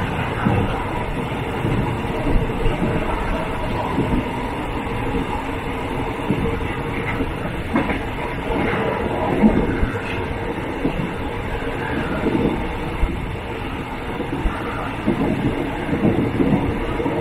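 Thai State Railway third-class carriage running along the track, heard through its open window: a steady rumble and rattle of wheels on rail, with irregular louder clatters.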